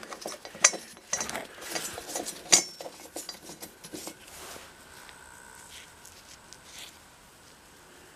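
Small metal clinks and scrapes of a spark plug being unscrewed by hand from a small engine's finned cylinder head and handled with gloved fingers, sharpest twice in the first few seconds, then dying away to quiet.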